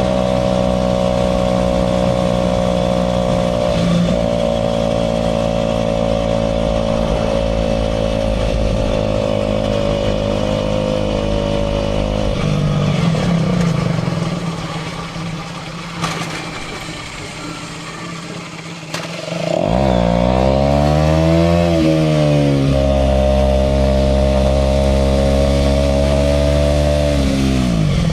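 Aprilia RS4 125's single-cylinder four-stroke engine, heard from the rider's seat while riding. It holds steady revs, eases off to a quieter low-rev spell about halfway, then revs up sharply near 20 s, dips at a gear change and rises again before settling. The revs fall again near the end.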